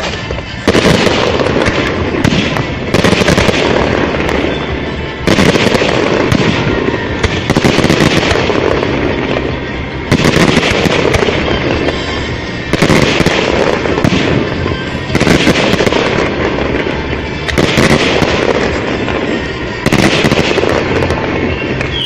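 Aerial firework shells bursting in a steady series, a loud bang about every two and a half seconds, each one trailing off into a crackling rumble. Music plays alongside.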